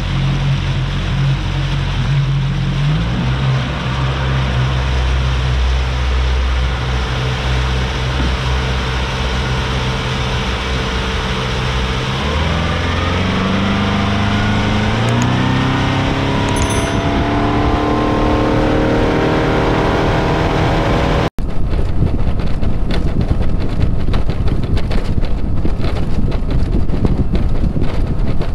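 Yamaha 150 SHO outboard (a four-stroke V4) running steadily under way, then rising in pitch as it is throttled up. About three-quarters of the way through it gives way abruptly to a rushing of wind and water with no engine tone.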